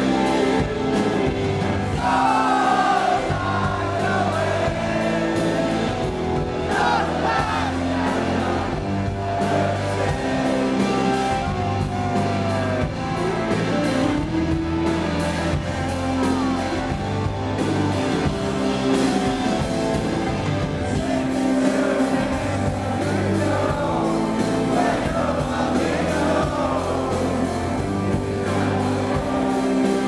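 Live rock band playing amplified in a concert hall: a male lead singer over electric guitar and drums.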